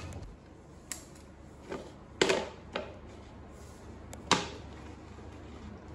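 Hard plastic knocks and clatters as a toddler handles plastic toys, a basket and a potty seat: about five sharp knocks, the loudest two about two and four seconds in.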